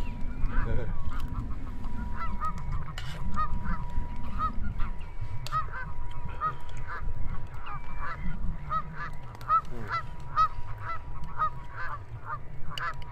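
A flock of geese calling, many short honks a second, over a low rumble. There are a few sharp clicks and a faint steady high tone.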